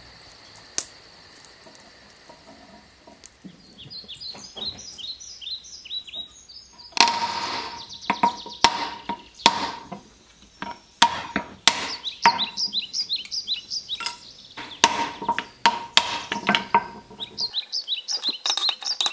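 Deer leg bone knocked against stones on a sandstone slab, which splits the bone for a blade blank. The knocks are sharp and ringing, come irregularly about one or two a second, and start several seconds in. High chirps sound between them.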